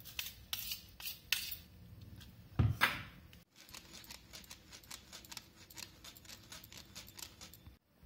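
Ground cashew powder being tapped out of a steel mixer jar into a plastic mesh strainer and sifted over a glass bowl: a run of light clicks and taps of jar and strainer against each other and the bowl, with one louder knock about two and a half seconds in.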